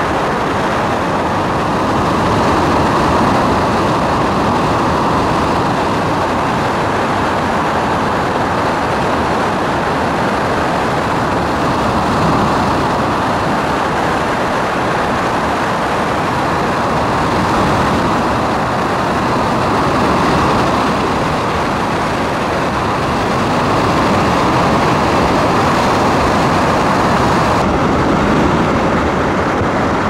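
Steady rush of white water: a waterfall and its torrent in full flow, pouring over granite rock.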